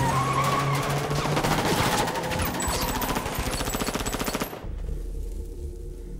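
Rapid automatic gunfire over loud action-film score, ending abruptly about four and a half seconds in and giving way to quieter, sustained music.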